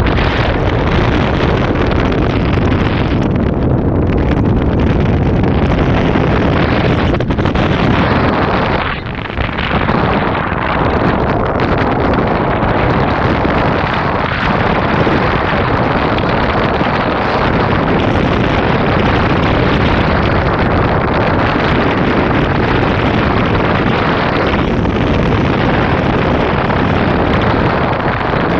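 Loud, steady rushing noise of wind on the microphone, dipping briefly about nine seconds in.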